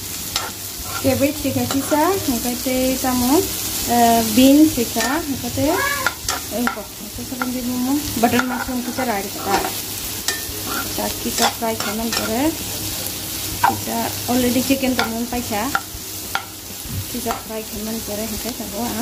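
Chicken and shredded cabbage stir-fried in a nonstick frying pan: hot oil sizzling under the repeated scrapes and taps of a steel spatula turning the food.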